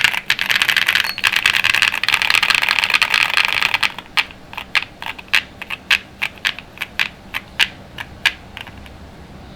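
QK75 mechanical keyboard with a POM plate, full foam, pre-lubed Kailh Ashes switches and QK75 bundle keycaps, typed on very fast in a dense clatter for about four seconds. Then single keystrokes follow, about three a second, and stop shortly before the end.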